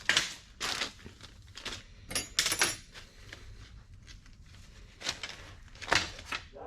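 Irregular clicks, knocks and a brief metallic rattle of small hard objects being handled and moved about, with gaps between them.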